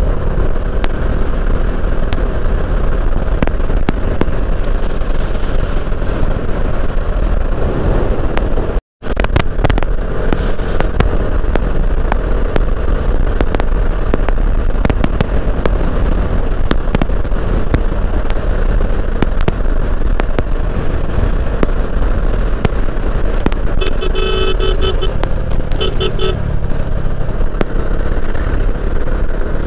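Bajaj Dominar 400 motorcycle riding at road speed: wind noise on the rider's microphone over the engine's running note. The sound cuts out briefly about nine seconds in, and a vehicle horn honks twice near the end.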